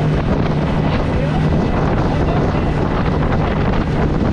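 Small fishing boat running at speed: a steady engine drone with wind buffeting the microphone and water rushing past the hull.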